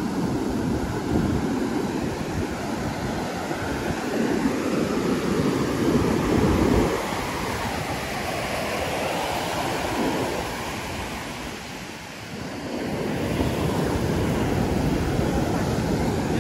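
Surf breaking and washing up a sandy beach, with wind buffeting the microphone; the rush swells and eases, dipping briefly about twelve seconds in.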